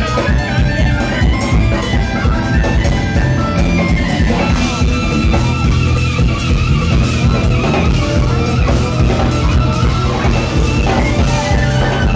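Live jazz-fusion band playing loud: electric bass, electric guitars and drum kit, with a rough, overloaded sound from right next to the stage.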